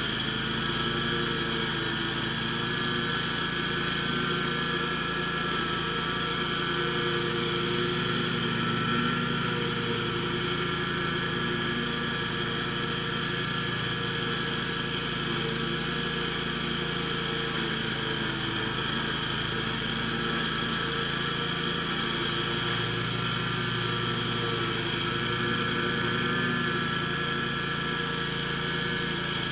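Scag zero-turn riding mower's engine running steadily, with a level, unchanging drone.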